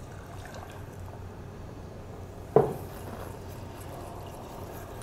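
Milk being poured into a saucepan of butter-flour roux while a wire whisk stirs it, a steady liquid pouring and stirring noise. About halfway through there is one sharp clink with a short ring.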